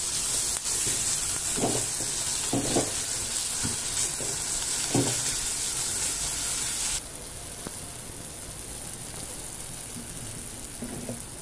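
Chopped tomato and onion masala sizzling in oil in a stainless steel kadai, stirred with a spatula that scrapes the pan a few times. The sizzle becomes quieter about seven seconds in.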